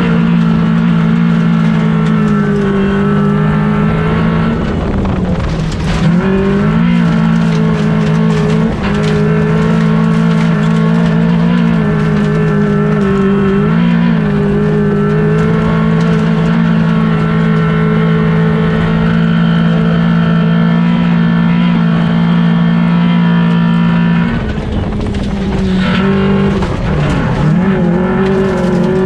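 Race car engine held at high revs on a dirt track, heard from inside the caged cockpit over the rush of tyres and loose dirt. Its pitch dips and recovers briefly about 5 s in, again around 14 s, and for a longer spell from about 24 to 27 s.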